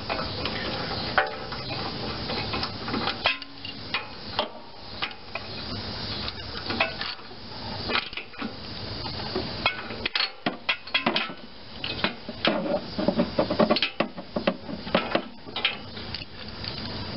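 Ratchet wrench and spark plug socket clicking and clinking while a new spark plug is threaded in and tightened, with quick runs of clicks in the second half.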